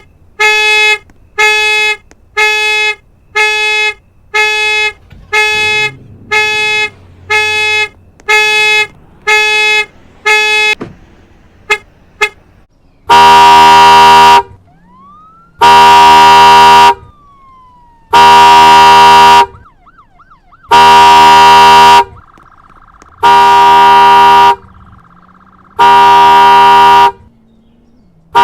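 Car alarms sounding the horn: first a horn beeping in quick even pulses, about one and a half a second, for about ten seconds. After a short gap a second, louder horn sounds in long blasts of nearly two seconds each, about every two and a half seconds, with a faint electronic siren sliding and warbling between the blasts.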